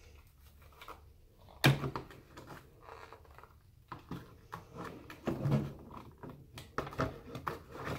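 Handling noise of a plastic airsoft rifle being moved about and set down into its cardboard box: a sharp knock about a second and a half in, then a run of lighter knocks and rubs.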